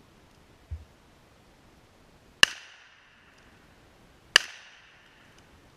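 Two gunshots about two seconds apart, each sharp and loud with a short echo trailing off behind it.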